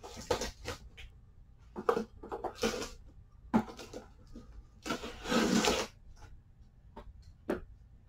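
A cardboard shipping box being opened and its packaging handled: scattered knocks, taps and rustles, with one longer scraping rush about five seconds in.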